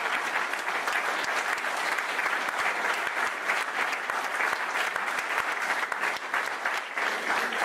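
Theatre audience applauding steadily at a curtain call, with the cast on stage clapping along.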